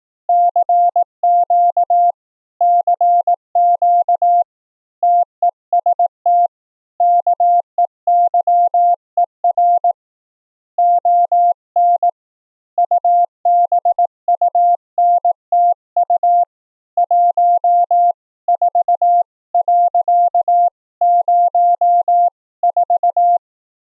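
Morse code sidetone from the Recri software CW keyer: a single steady mid-pitched tone keyed into dits and dahs, sending character after character with short pauses between groups.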